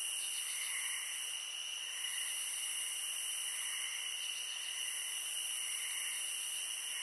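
Steady night-time insect ambience, crickets chirping as a continuous high hiss with no music.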